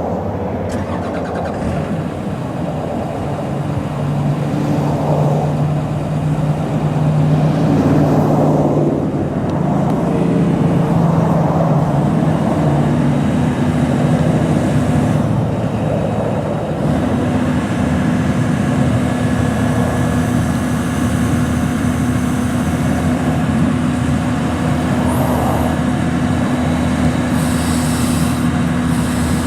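Komatsu PC240LC-10 excavator's six-cylinder turbo-diesel engine running, its pitch stepping up about twelve seconds in and then holding steady. It gets louder between about four and eight seconds in.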